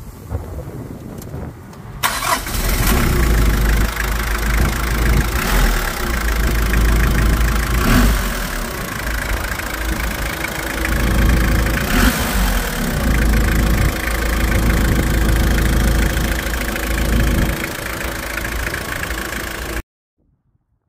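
A 1995 Mitsubishi Delica's turbo diesel engine, heard from the open engine bay, starts about two seconds in and settles into a steady idle with a deep rumble. The sound cuts off abruptly near the end.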